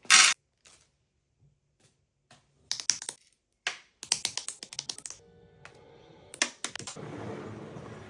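Plastic Lego pieces clicking and rattling as they are handled and snapped together, in irregular clusters of small sharp clicks, with a longer stretch of shuffling noise near the end.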